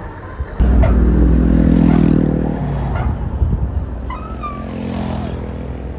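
Tour bus engine revving hard, starting suddenly about half a second in and loud for about two seconds, then easing off to a steadier run.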